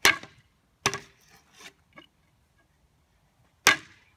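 A hollow plastic toy bat whacking the wooden pole of a batting tee: three sharp knocks, two a little under a second apart, then a strong one near the end that leaves the pole leaning over.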